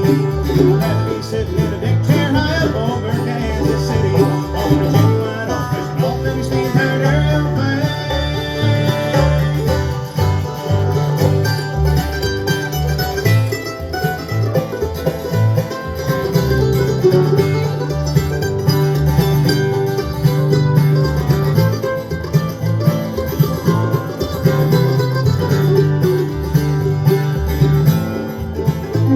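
Bluegrass band playing live, with banjo and guitar picking an instrumental break.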